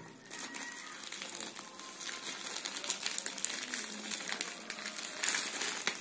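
White plastic courier mailer bag crinkling and crackling irregularly as hands handle it and start to open it, a little busier in the second half.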